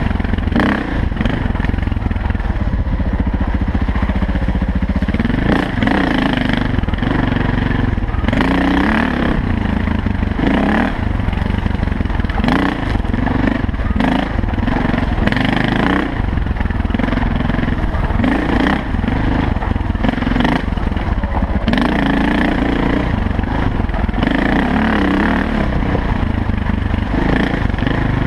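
Off-road dirt bike engine riding a rough trail, its pitch rising and falling every second or so as the throttle opens and closes, with frequent sharp knocks and rattles from the bike over the bumpy ground.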